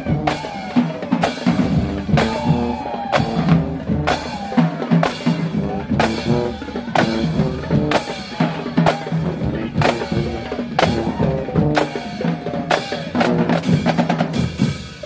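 Marching band playing: snare and bass drums beat a steady cadence while sousaphones and other brass play a tune over it, with a stepping bass line.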